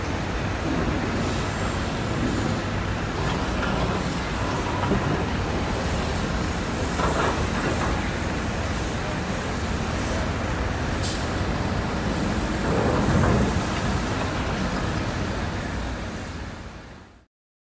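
Steady mechanical rumble and hiss of a moored ferry and heavy vehicles on the quay, with a faint wavering high whine and two louder swells, the first about seven seconds in and the second about thirteen seconds in; it fades out near the end.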